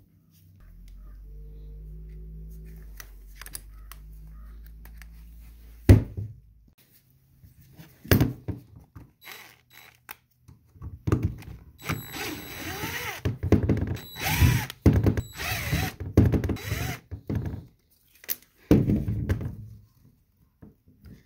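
Cordless DeWalt drill/driver backing screws out of an air-brake valve's cover, running in several short bursts with the motor pitch rising and falling. A sharp knock comes about six seconds in, and a low steady hum runs during the first six seconds.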